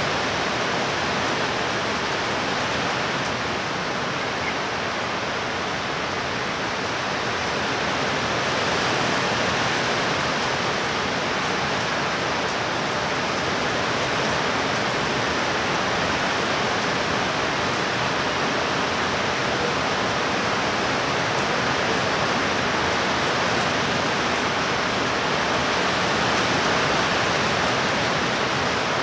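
Heavy rain pouring down in a steady, even hiss, with no thunderclap.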